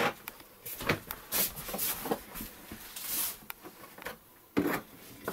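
Handling noise on a kitchen table: a few knocks and clicks with short scraping, rustling sounds as a plastic funnel is fitted into the neck of a large plastic water bottle.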